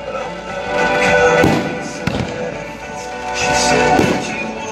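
Music for a pyromusical fireworks show, with aerial firework shells bursting over it three times: about a second and a half in, at about two seconds, and near the end.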